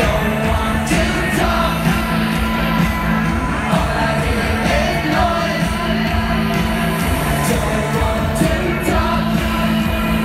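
Live pop band played loud over a concert PA and heard from the audience, with a pulsing bass line, steady drums and a singing voice.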